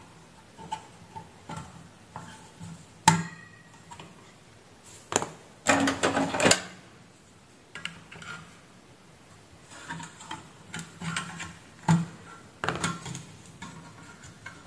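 Clicks, taps and short scrapes of a screwdriver and hand work on the plastic keypad and sheet-metal housing of a variable frequency drive being taken apart. A sharp knock about three seconds in is the loudest, followed by a longer rattling scrape near six seconds and a few more taps later.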